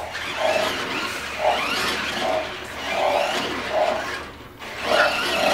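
Spin Master Legendary Yoda animatronic toy's motors and gears whirring as it twists its body and swings its arms through lightsaber moves, the whir pulsing unevenly with each movement.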